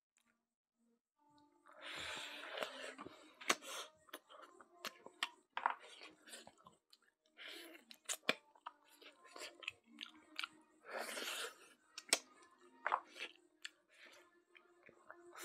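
Close-up wet chewing and lip-smacking of smoked pork and rice eaten by hand, with many sharp mouth clicks. It is near silent for about the first second and a half, then the chewing comes in irregular bursts.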